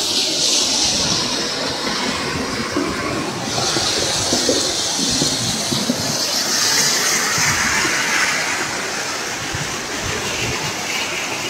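Muddy floodwater rushing down a street as a loud, steady torrent, churning where it piles up against a utility pole.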